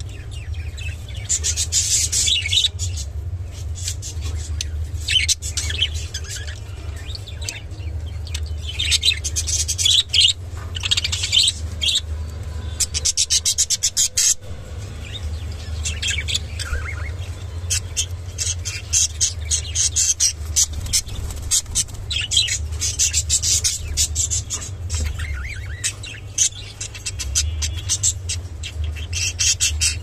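Budgerigars chirping and chattering in short high bursts over a steady low hum, with quick clicking mixed in.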